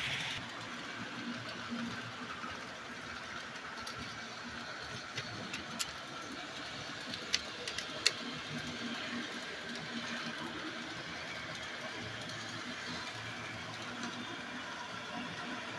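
Model train running on the layout: a steady mechanical whirr of the locomotive motor and wheels on the rails. A few sharp clicks come between about five and eight seconds in as a covered hopper car is handled on the track.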